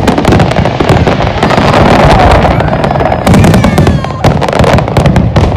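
Fireworks display: shells bursting overhead in a dense barrage of sharp bangs and crackling.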